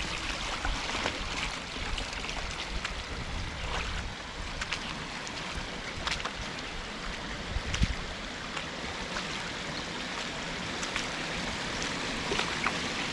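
Water running over a low concrete weir in a river channel: a steady rush with small splashes.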